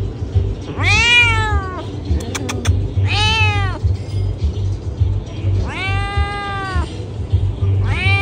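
Domestic cat meowing loudly: four drawn-out meows about two seconds apart, each about a second long and rising then falling in pitch, the last starting near the end. A quick run of clicks falls between the first two meows.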